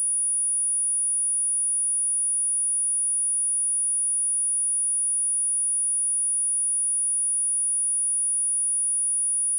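Pure 9726 Hz sine-wave test tone for checking speakers, a single high-pitched steady whistle at constant loudness.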